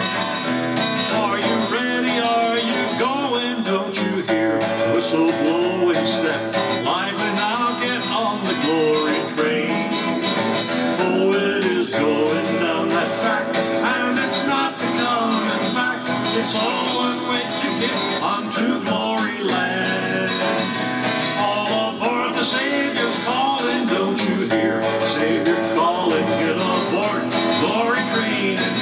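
Instrumental break in a country gospel song: acoustic guitar strumming steadily, with a gliding melody line over it.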